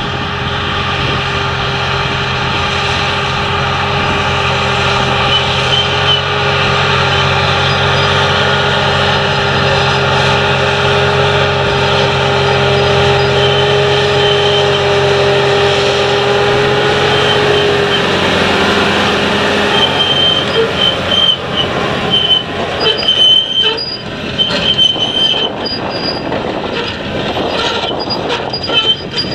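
John Deere 7280R tractor on rubber tracks working a field: its six-cylinder diesel runs steadily under load, with squealing from the tracks. About two-thirds through, the engine tone falls away as it passes, and the rattling and squeaking of the trailing cultivator's steel rollers take over.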